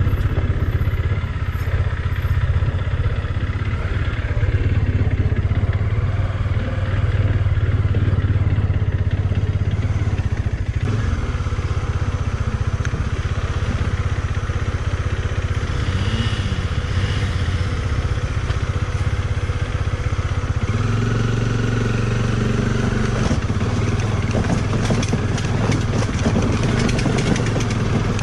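Motorcycle engine running steadily as the bike is ridden along a rough off-road trail; the engine note changes about two-thirds of the way through.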